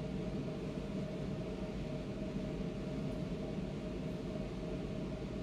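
Steady background hum and hiss with a faint constant tone, unchanging throughout.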